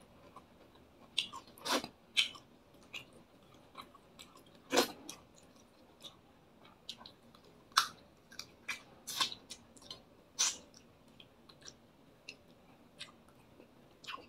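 A person chewing fried fish up close: a string of short, irregular clicks and smacks from the mouth.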